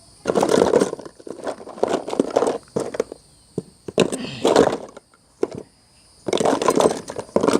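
Plastic hand-sanitizer bottles crackling and crinkling as they are handled and squeezed, in about four short bursts.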